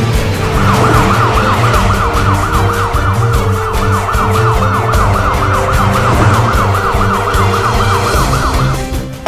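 Police car siren wailing in a fast yelp, its pitch sweeping up and down about four times a second; it starts just after the beginning and stops near the end.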